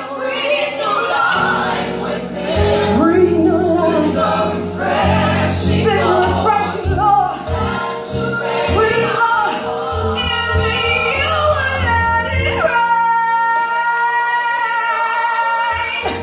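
Gospel worship song with singing over an accompaniment with a bass line. About twelve seconds in, the bass drops out and one long note is held.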